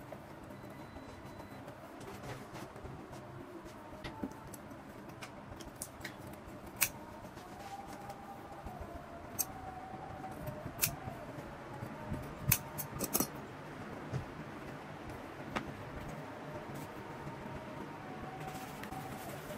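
Hand scissors snipping through a paper pattern: scattered sharp clicks and snips, thickest in the middle, over a steady low room hum.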